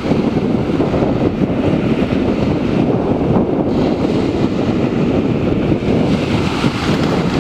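Wind buffeting the microphone, a steady rough rush, with the wash of water on the sea beneath it.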